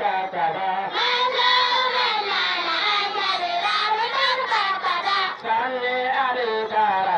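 Girls singing a Hausa bege, a devotional praise song for the Prophet, growing louder and brighter about a second in, with a steady low hum underneath.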